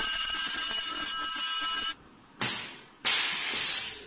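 High-frequency blister sealing machine working. A steady high-pitched whine of several tones stops about two seconds in. Then come two sharp hisses of released compressed air, the second one longer.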